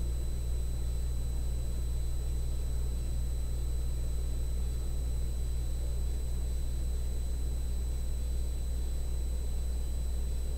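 Steady low electrical hum with a hiss over it and a faint thin high whine, unchanging throughout.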